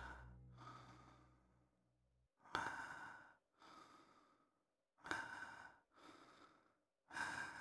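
A person's slow breathing: three sharp breaths in, about two and a half seconds apart, each followed by a softer breath out. Under the first breath a low held music note fades away.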